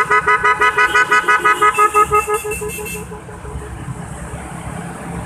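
Scooter horn beeping in a rapid string of short toots, about seven a second, for a little over two seconds, then stopping, leaving the low rumble of wind and engine noise from the moving ride.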